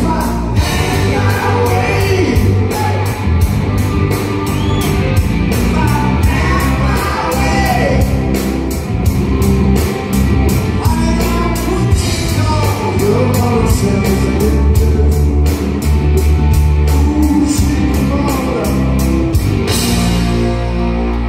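Live rock band playing loud in a concert hall: electric guitar, bass and drums under a sung lead vocal, with steady cymbal strikes. Near the end the drums stop and held guitar and bass chords ring on.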